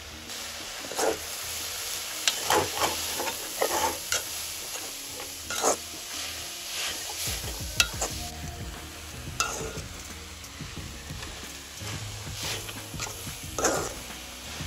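Chopped winged beans sizzling with a steady hiss in a large metal pot, while a wooden-handled spoon stirs them with irregular scrapes against the pot.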